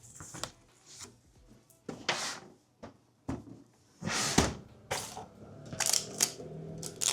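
Irregular clicks, knocks and rustling of small objects being handled.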